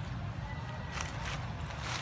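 Footsteps crunching on dry fallen leaves, a few short crunches starting about a second in, over a steady low rumble.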